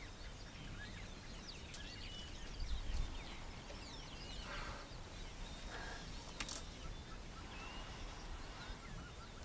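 Outdoor savanna ambience: many small birds chirping and calling over a low rumble that swells briefly about three seconds in.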